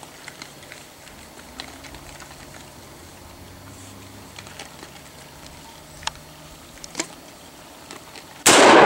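A single loud AR-10 rifle shot near the end, ringing out in a long echo; before it, only faint quiet with a few small clicks.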